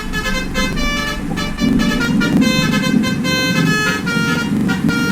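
Basuri musical horn playing a quick 'telolet' tune of changing notes over a running vehicle engine.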